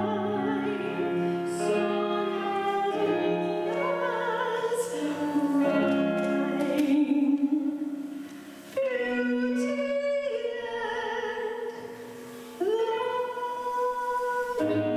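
Live music: a singer's voice over instrumental accompaniment, with long held notes. The music dips briefly about eight seconds in and again near twelve seconds.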